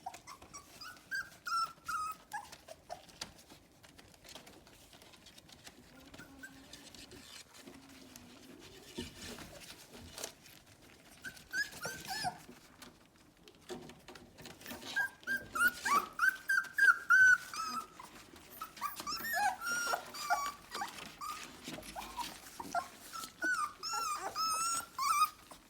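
Young puppies whining and whimpering in short, high-pitched, wavering calls, sparse at first and then coming thick and fast from about halfway through, with small clicking sounds in between.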